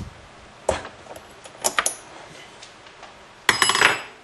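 Metal clicks and clinks of a T-handle wrench on the spark plug of an Echo PB-200 blower as the plug is taken out: a few sharp clicks in the first two seconds, then a louder, ringing rattle of metal near the end.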